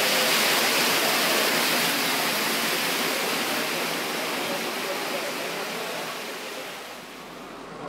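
Model passenger train running on the layout track: a steady rushing rattle of wheels and motor that fades gradually as the train moves away.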